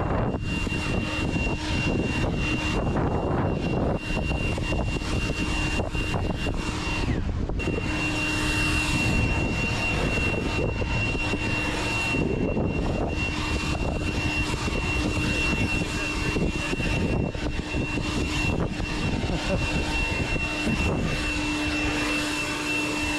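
An engine-driven machine running steadily, with a constant high-pitched whine over dense motor noise.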